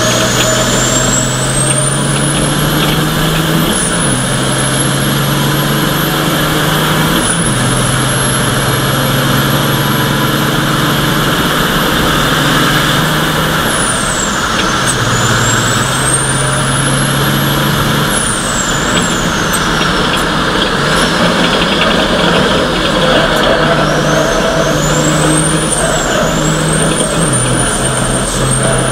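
Race truck's diesel engine heard from inside the cab under hard acceleration, with a high whine that climbs with the revs. The pitch drops sharply at upshifts about 4 and 7 seconds in, falls under braking around 14 and 18 seconds, then rises and falls repeatedly through the later corners.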